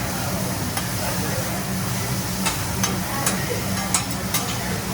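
Food sizzling on a hibachi griddle, with several sharp clicks of a metal spatula tapping and scraping the hot plate.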